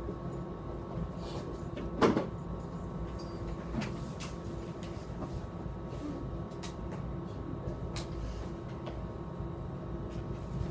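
Classroom room noise over a steady hum, with one sharp knock about two seconds in and a few faint clicks after it.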